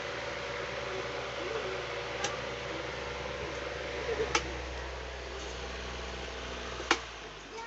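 Electric table fan running steadily: motor hum with a rush of air, broken by a few sharp clicks.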